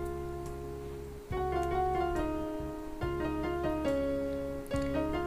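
Background music: a slow keyboard tune of held notes.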